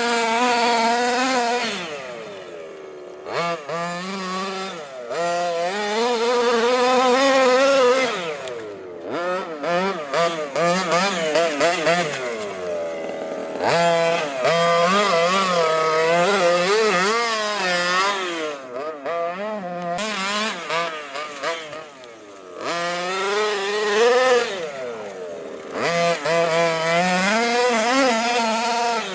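The 26 cc two-stroke petrol engine of an HPI Baja 5T 1:5 scale RC car, fitted with a Jet-Pro pipe, revving up and down over and over as the throttle is worked. Several times it drops back briefly before revving again.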